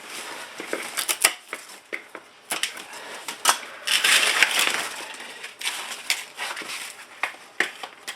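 Damaged bird's nest fern leaves being snapped and torn off by hand: irregular crackling and snapping, denser for a moment about four seconds in.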